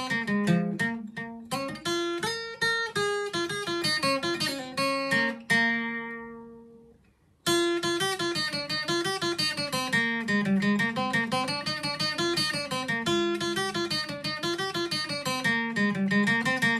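Takamine acoustic guitar playing a lively traditional tune in quick picked notes. About five and a half seconds in, a chord rings and dies away, and after a short pause the playing starts again.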